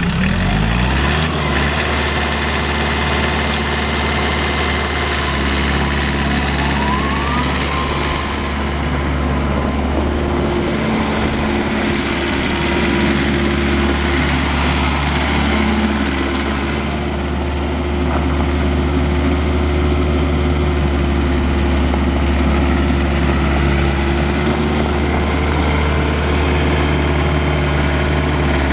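McCormick CT28 compact tractor engine, just started, picking up speed in the first second or so, then running steadily as the tractor is driven around.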